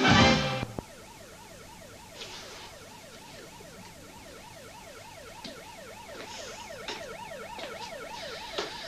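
The end of a burst of theme music in the first second, then a faint emergency-vehicle siren yelping, its pitch rising and falling about three times a second. A few soft clicks and rustles come over it.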